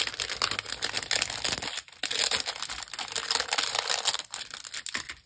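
Clear plastic sticker sheet crinkling as it is handled and a small jar sticker is peeled off it: a rapid run of fine crackles, with a brief pause about two seconds in.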